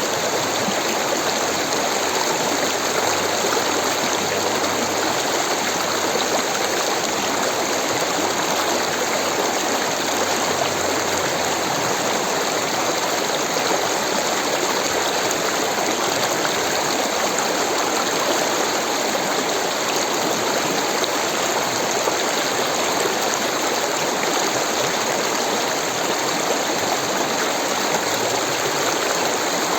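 Rushing water, like a stream over rocks, making a steady, even rush with no breaks.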